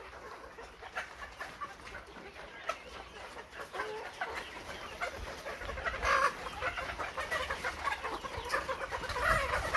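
A flock of caged Arab chicken pullets clucking on and off, with one louder call about six seconds in.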